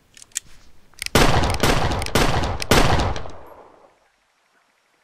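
Pistol gunshots: about four quick shots roughly half a second apart, starting about a second in, with a ringing tail that dies away about a second after the last shot.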